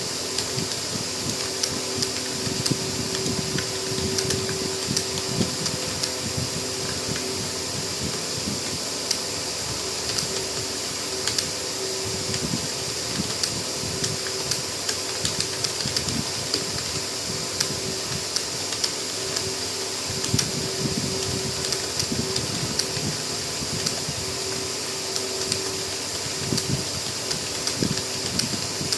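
Fast, continuous typing on a computer keyboard, keystrokes clicking several times a second without a break, over the steady hum of a fan.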